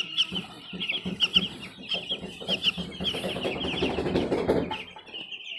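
Flock of chickens: many overlapping high-pitched peeps and clucks, with a louder, noisy clutter of lower sounds from about three to five seconds in.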